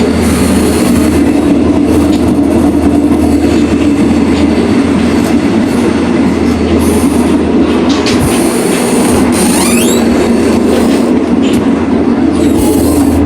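Commuter train running, heard from on board: a loud steady rumble of the wheels on the rails, with high-pitched wheel squeals coming and going, one rising in pitch about ten seconds in.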